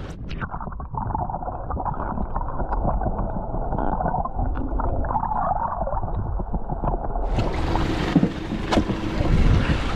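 Muffled sloshing water and boat noise, dull as if heard underwater, with no clear sound above the low and middle range; about seven seconds in the sound opens up to full open-air wind and water noise with a steady low hum.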